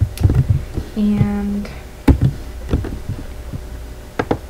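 Scattered clicks of a computer keyboard and mouse as a short word is typed, with a brief hummed 'mmm' about a second in and a low steady hum underneath.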